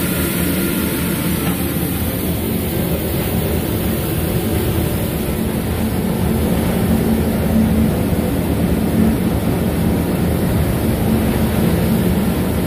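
Coin-operated rice-milling machine running: a steady mechanical drone with a low, even hum, as it mills paddy into white rice.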